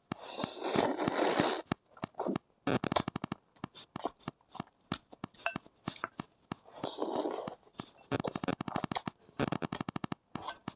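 Close-up eating sounds of a person eating noodles: long slurps at the start and again past the middle, between them wet chewing and smacking clicks, with a fork clinking against the bowl.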